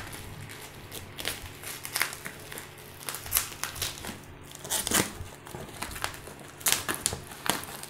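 Plastic bubble wrap crinkling and crackling as it is cut with scissors and pulled back off a cardboard box, in irregular sharp crackles.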